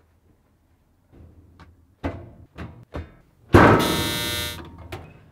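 Short knocks and thuds from laundry machines being handled, then a loud electric buzz of about a second from a clothes dryer.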